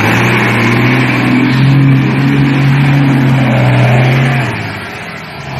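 Old bonneted truck's diesel engine labouring at steady high revs under heavy load while the truck pushes through deep mud and floodwater. The engine eases off about four and a half seconds in.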